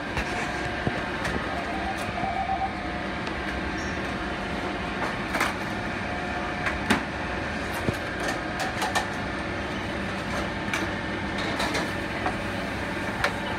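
Steady mechanical drone of a commercial kitchen's running equipment, with sharp clinks and knocks of pans and utensils now and then.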